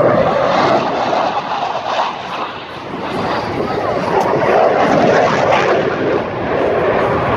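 Jet noise from a CF-18 Hornet's twin turbofan engines during a display pass, a loud rushing noise that dips about two and a half seconds in and then swells again.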